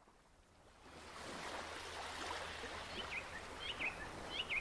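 Steady rush of water fading in about a second in, with a few short, high, falling chirps in the last two seconds.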